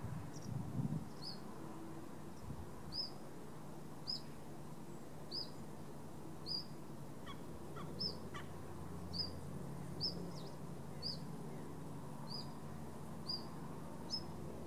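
A small bird repeating a short, high, downward-sliding chirp about once a second, over a steady low background rumble.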